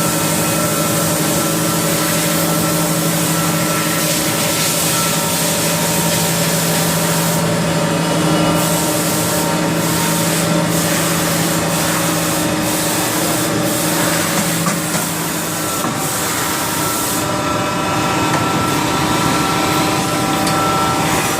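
Haas VF-4SS CNC vertical machining center running: a steady machine hum with several steady tones over a hiss. The low hum drops out for a few seconds past the middle, and a high hiss cuts in and out in the middle stretch.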